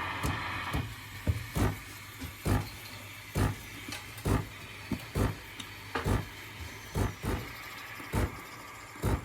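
A steady machine hum that stops about a second in, followed by a string of sharp knocks and clicks at uneven spacing, about one to two a second.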